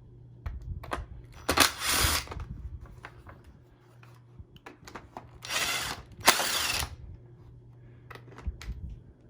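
Cordless screw gun running in three short bursts, once about a second and a half in and twice close together near the middle, backing screws out of a vacuum cleaner's plastic housing, with small clicks of handling between them.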